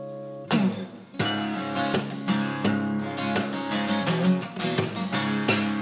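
Background music: strummed acoustic guitar in a steady rhythm, starting about half a second in after a held chord dies away.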